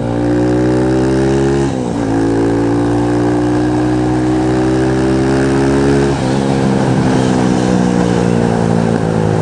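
Motorcycle engine running as the bike rides along, its pitch climbing steadily as it accelerates and dropping sharply twice, about two seconds in and about six seconds in, at up-shifts.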